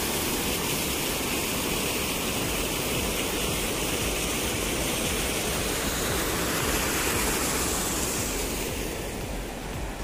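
Rushing water of a small rocky stream spilling over stones in little cascades, a steady rush that grows a little quieter near the end.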